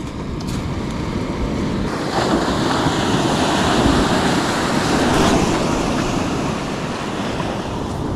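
Surf breaking and washing up the beach, swelling about two seconds in and easing off near the end, with wind on the microphone.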